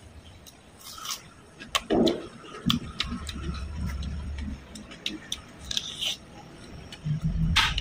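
Close-up eating sounds: fingers working food on a steel tray and the mouth biting and chewing, heard as scattered small clicks and smacks.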